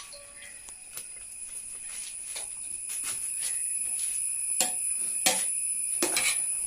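Metal spatula knocking and scraping against a pan as rice is tossed and stirred, the strokes irregular and louder in the second half. A steady high-pitched tone runs underneath.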